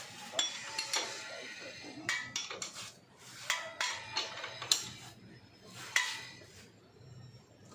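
Metal tools clinking and knocking on the motorcycle's rear wheel assembly, a string of sharp ringing clinks at irregular intervals, as the rear axle fitting is finished.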